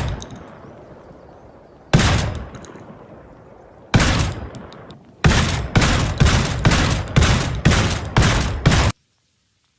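SPAS-12 shotgun sound effect: two single shots about two seconds apart, each with a long decaying echo, then a quick string of about nine shots at two to three a second that cuts off sharply.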